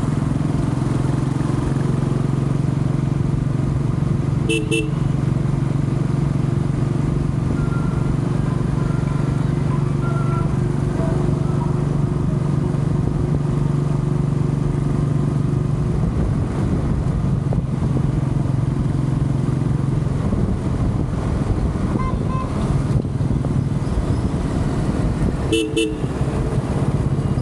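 Royal Enfield Classic 350's single-cylinder engine running steadily under the rider, with wind and traffic noise. A vehicle horn gives a quick double toot twice, once a few seconds in and once near the end.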